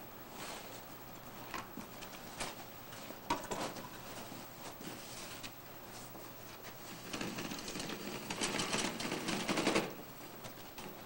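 Stage props being handled and moved: scattered knocks, then a rapid clattering rattle for about three seconds that stops sharply near the end.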